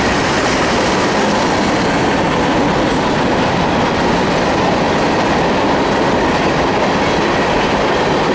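Freight train cars, mostly tank cars, rolling past close by: a steady, unbroken noise of steel wheels running on the rails.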